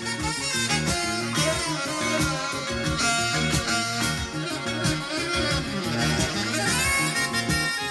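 Recorded instrumental music with guitar and a steady beat, played back from a cassette deck's recording of a vinyl record.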